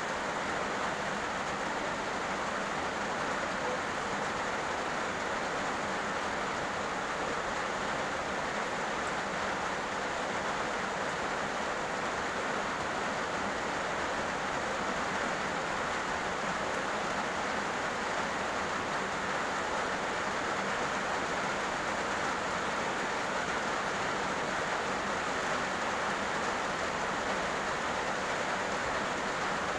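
Heavy rain falling on a road, a steady even hiss with no breaks or thunder.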